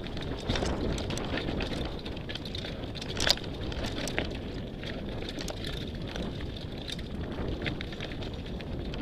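Mountain bike descending a rough dirt trail at speed: wind buffeting the microphone over the rumble of tyres on dirt and stones, with frequent rattles and knocks from the bike over bumps and one sharp clack about three seconds in.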